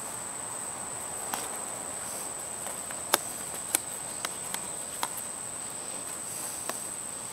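A steady high-pitched insect trill, with a scatter of sharp clicks and knocks from digging in rocky soil, the loudest about three seconds in.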